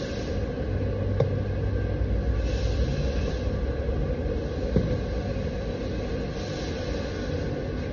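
A steady low rumble with a hum under it, and two light clicks, about a second in and again near the five-second mark.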